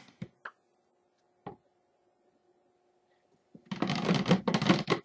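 A few light clicks, then, near the end, about a second of irregular knocking and clattering of utensils against the soap-mixing container, between bursts of stick blending.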